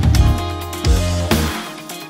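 Background music with heavy bass notes and sharp drum hits.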